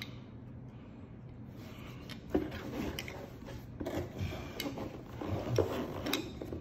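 Handling noise as an AK rifle is set down into a cardboard box lined with egg-crate foam: irregular rubbing and soft knocks against the foam and cardboard, starting about two seconds in with a sharper knock.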